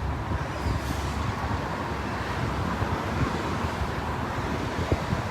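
Steady outdoor noise: a low, unsteady rumble of wind on the microphone over a constant hiss of road traffic.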